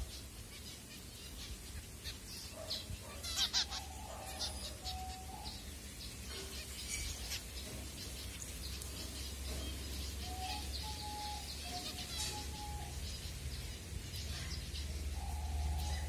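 A flock of zebra finches calling while feeding, with short chirps and calls scattered throughout, over a low steady hum.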